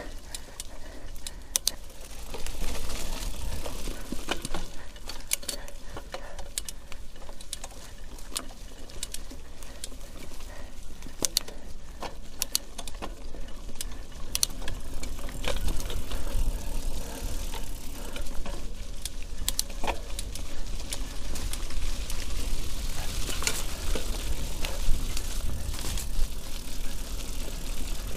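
Nakamura 730 LTD mountain bike ridden over a rough, wet trail: the chain and frame rattle with many sharp clicks and knocks as it goes over roots, over the tyres' noise on mud and a low rumble on the microphone.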